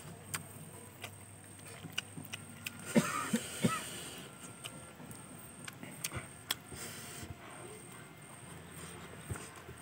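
Close-miked eating sounds: fried chicken being pulled apart by hand and chewed, with many small crackles, clicks and mouth noises. A brief pitched sound about three seconds in is the loudest moment.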